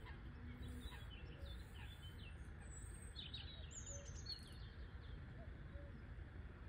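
Small birds chirping in short, high calls, clustered between about one and four and a half seconds in, over a steady low rumble.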